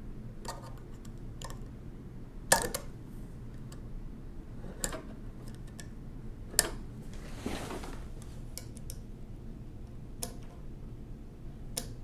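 Small metal tool clicking and tapping against the steel spring, lever and frame of a 1920s Monroe mechanical calculator while a small spring is worked off its post. There are a handful of sharp clicks, the sharpest about two and a half seconds in and another about six and a half seconds in, and a brief rustle just after.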